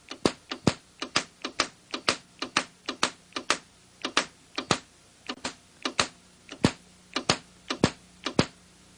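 Tesla coil sparks jumping about a foot through the air onto a model building as simulated lightning, giving sharp snapping cracks at an irregular pace of about two or three a second.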